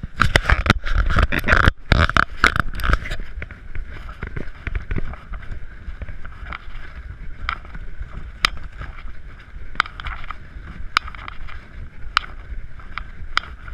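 Handling noise from a handheld action camera being fumbled and turned over, dense knocks and rubbing for about the first three seconds. Then sharp taps roughly once a second as the camera is carried at a walk, over a steady background hum.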